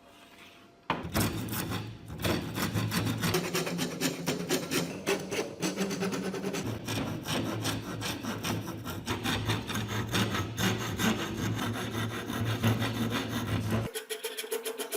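Rhythmic rasping strokes of a hand file or rasp working a workpiece, starting suddenly about a second in and running on steadily; near the end the strokes become quicker and lighter.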